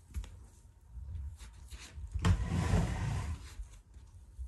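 Black Shiba Inu giving a short, breathy growl about two seconds in, lasting a little over a second.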